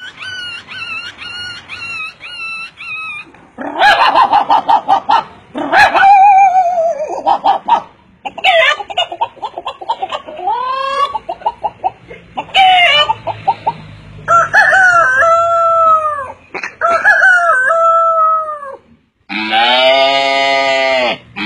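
A man imitating farmyard fowl with his voice: a quick run of short clucks, then loud rooster-like crowing calls whose pitch falls away at the end, and finally one long, low held call.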